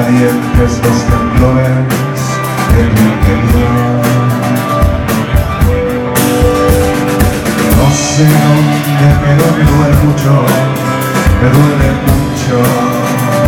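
Live rock band playing, loud and unbroken, with guitar and a steady beat of drums.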